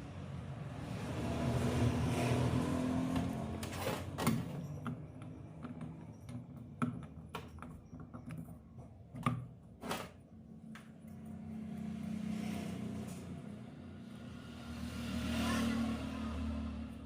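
Motorcycle engine running, revved up about two seconds in and again near the end, with several sharp knocks in between.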